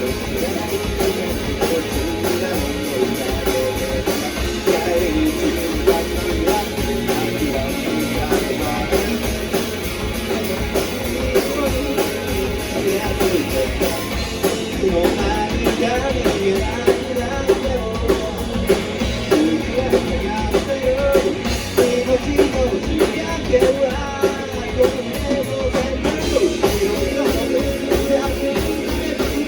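Rock band music: electric guitars and a drum kit playing a steady-beat passage with no sung words.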